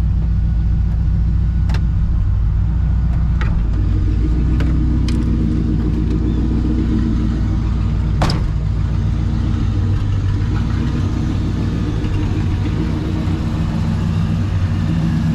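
Ford 5.0 EFI V8 running steadily at low revs, with a sharp click of the car door latch about eight seconds in.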